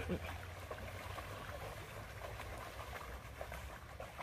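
Creek water running over a shallow rocky bed: a steady rushing with small scattered splashes and a low rumble underneath.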